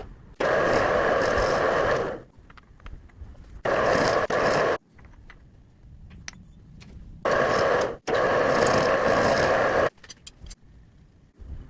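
Milling machine cutting metal in four loud stretches of noisy, scraping machining, each starting and stopping abruptly, with small clicks and taps between them.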